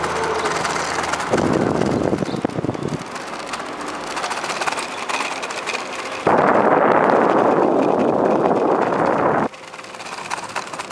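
Bicycle rolling over wooden boardwalk planks: a rapid, continuous clatter from the wheels and bike, with rushing wind noise on the camera. About six seconds in, a louder rush of noise cuts in suddenly and stops just as abruptly some three seconds later.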